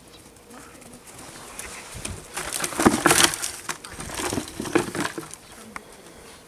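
Dry twigs, shrub branches and leaf litter rustling and crackling, with many small snaps, for about three seconds, loudest around the middle.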